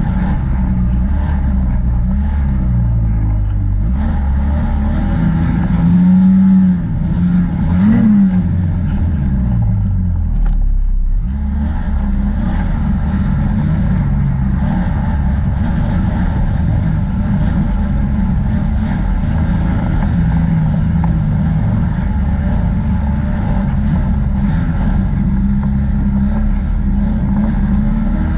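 A motor vehicle's engine running while under way, with a steady low rumble. Its pitch climbs about six to eight seconds in, then falls away, eases off briefly, and settles back into a steady drone.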